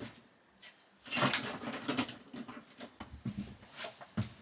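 Irregular clicks and clatter of small metal hand tools being handled while a socket is fitted onto a driver. The clatter starts about a second in and thins to scattered clicks.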